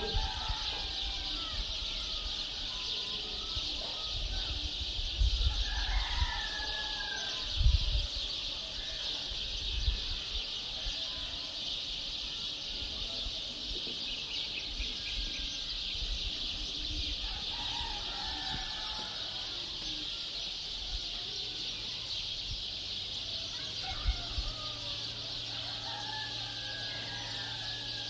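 Several birds calling and chirping in scattered bursts over a steady high hiss, with a few low thumps.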